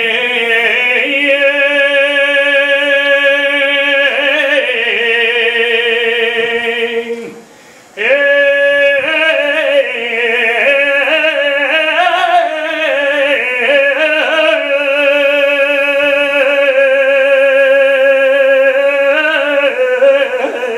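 A man singing a saeta without accompaniment: long held notes with a wide vibrato and ornamented runs. About seven seconds in he breaks off for a breath, then takes up the song again.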